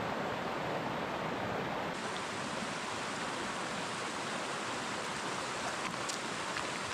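Shallow rocky stream rushing over stones in a steady hiss, turning brighter about two seconds in as white-water rapids take over, with a few faint clicks near the end.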